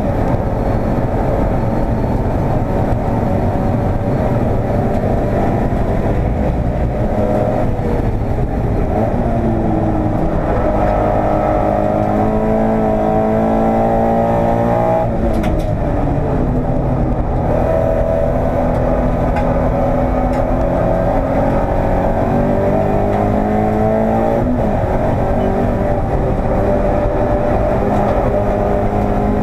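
Toyota 86 race car's 2.0-litre flat-four engine heard from inside the cabin at racing speed, its note falling as the driver lifts, then climbing under acceleration with sharp drops at gear changes about halfway through and again near the end.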